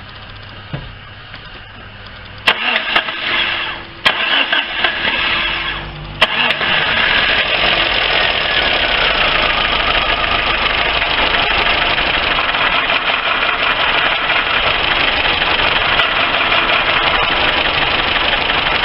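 A Lifan car's petrol engine being cranked on the starter in two tries, about two and a half seconds in and again at four seconds, then catching about six seconds in and running steadily and loudly.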